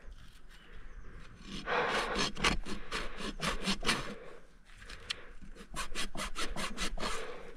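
A hoof rasp filing down a horse's heels and quarters in quick, rhythmic back-and-forth strokes. The strokes come in two spells, starting about two seconds in, with a short pause in the middle.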